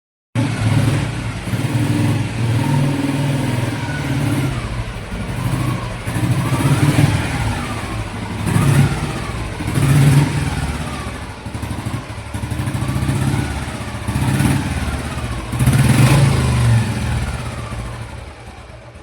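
Royal Enfield Bullet single-cylinder engine running and being revved again and again, its pitch rising and falling every second or two, fading near the end.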